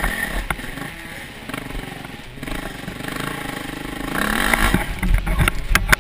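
Dirt bike engine running on a rough trail, its revs rising about four seconds in, followed by several sharp knocks and clatter near the end.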